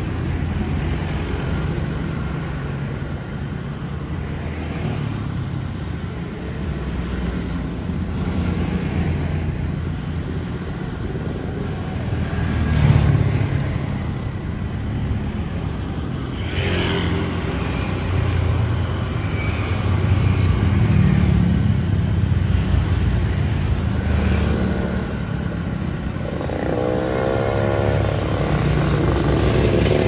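Steady night street traffic of cars and motorbikes passing, with engines running and tyres on the road. One vehicle passes loudly and close about 13 seconds in, and near the end a motorbike accelerates past with a rising engine pitch.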